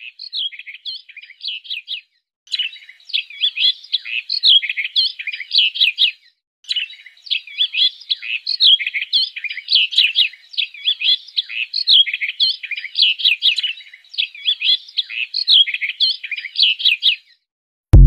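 Songbird singing: long runs of rapid, varied chirps and trills, broken by a few short pauses, stopping about a second before the end.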